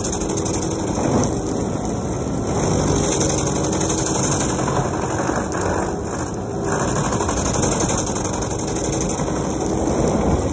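Vermeer FT300 stump grinder's engine running steadily under load while its toothed cutter wheel grinds into a tree stump, the level swelling a little as the wheel bites.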